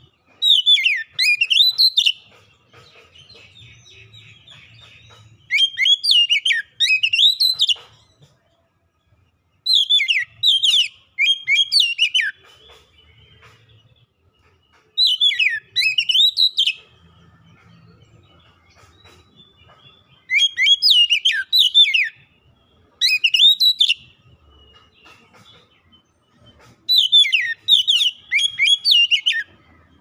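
Oriental magpie-robin (kacer) singing: six loud phrases of rapid, swooping whistled notes, each about two seconds long and coming roughly every five seconds, with faint twittering between them. It is the kind of song kept as a lure to set reluctant kacer singing.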